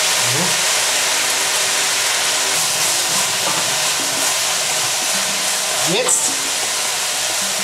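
Vegetables stir-frying in a hot wok: a steady sizzle.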